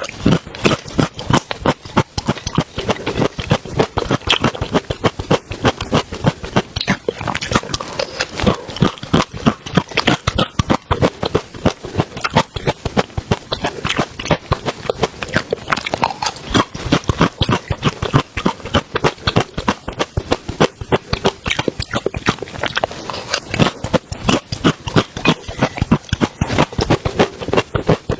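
Close-miked eating: wet chewing and lip smacking, a fast run of quick smacks and clicks throughout.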